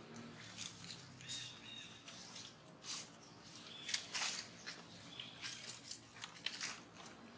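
Dry leaf litter rustling and crackling under monkeys moving and foraging on the ground, with a few short high chirps.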